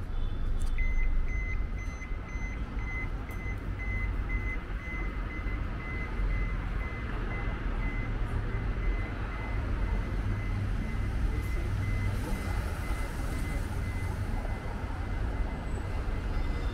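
Repeated electronic warning beeps at one steady pitch, starting about a second in, over the low rumble of city traffic.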